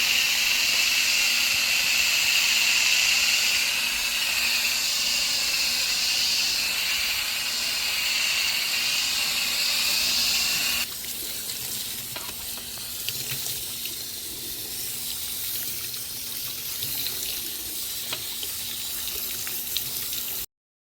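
Water spraying from a hose onto an HVAC condenser coil to wet it down for cleaning. A steady loud hiss drops suddenly to a quieter spray with scattered ticks about eleven seconds in, and the sound cuts off just before the end.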